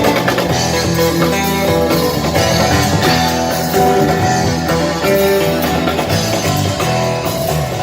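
Loud rock-style music with guitar and drums.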